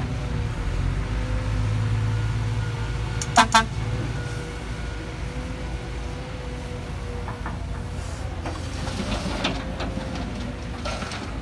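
Kobelco SK200 hydraulic excavator's diesel engine running under load with a low rumble and a steady whine as it digs and swings soil into a dump truck. Two short horn toots sound about three and a half seconds in, and a few clanks come later.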